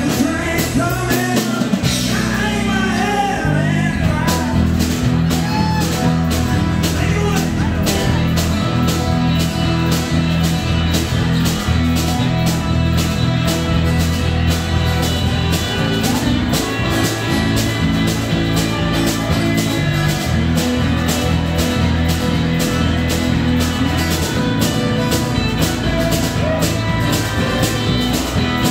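Live band music played loud through a PA: electric guitar over drums, with a steady cymbal beat.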